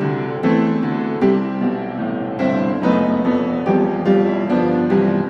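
Background piano music, single notes and chords struck one after another and left to ring.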